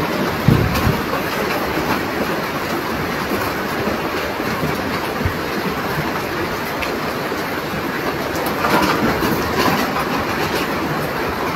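Fast-flowing floodwater rushing past: a steady, loud roar of water, with a brief low bump about half a second in.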